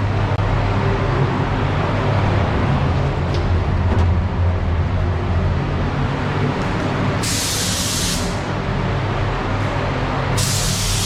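A steady mechanical roar with a low hum runs throughout. A paint spray gun hisses with compressed air in two bursts, one about seven seconds in and one starting near the end.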